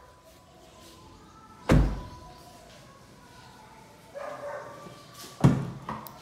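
Doors of a Tata Harrier SUV being shut: two heavy thumps, about two seconds in and again near the end.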